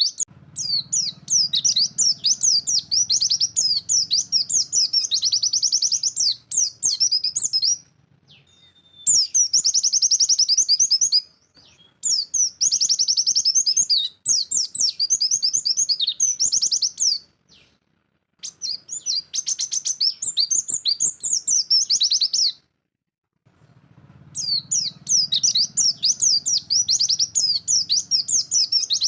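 White-eye (pleci) singing a fast, high-pitched 'nembak' song of rapid chattering notes. It comes in long runs broken by several short pauses.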